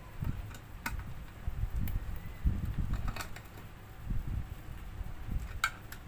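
Hand assembly on a Stihl 070 chainsaw crankcase: uneven low knocks and handling noise as a screwdriver works a bolt and mounting parts, with a handful of sharp metallic clicks of the tool against the casing.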